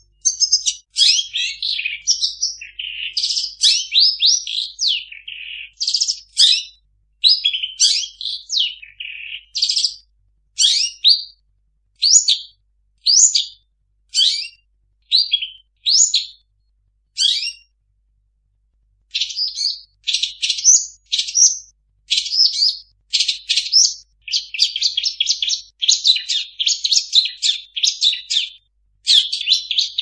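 Long-tailed shrike (cendet) singing a varied song full of imitations of other birds' calls, in short, rapid chirping phrases. About eighteen seconds in there is a brief pause, then a denser run of chattering.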